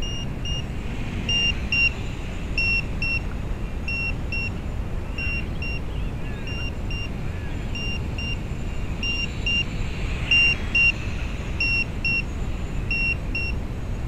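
Radio control transmitter beeping, a double beep about every 1.3 seconds: its flight timer alarm, the two-minute countdown having run out. A low wind rumble on the microphone lies under it.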